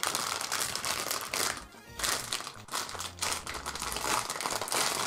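Plastic packaging crinkling and rustling as a plastic model kit's bagged parts are handled, over background music.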